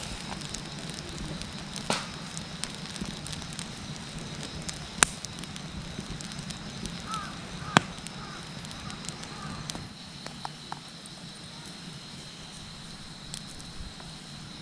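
Fire crackling with a steady hiss and a few sharp pops as shrimp and steak kebabs grill over it. The level drops about ten seconds in, and a faint steady high tone runs underneath.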